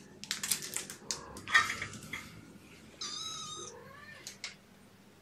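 A young kitten meows once, a high cry of under a second about three seconds in. Before it come a few light knocks and rustles of things being handled.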